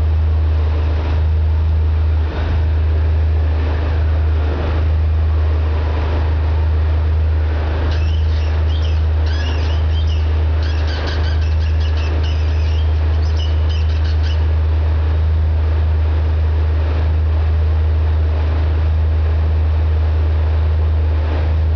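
Factory clutch on a Dodge SRT-4 squeaking: a series of short, high chirping squeaks for several seconds in the middle, over a steady low hum. The squeak is the owner's complaint about an original clutch with only 13,000 miles on it.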